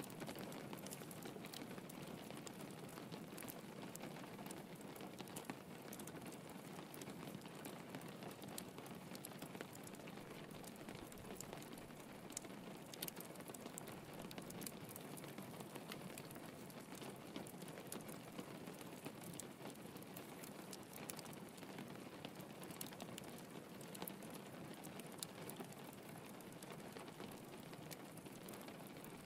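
Steady rain pattering on a window, with small crackles and pops from a wood fire in a fireplace.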